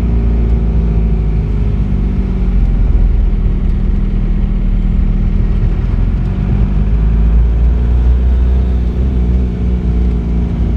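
Vehicle cabin noise while driving: a steady low rumble of engine and tyres, the engine's pitch drifting a little as speed changes around the middle.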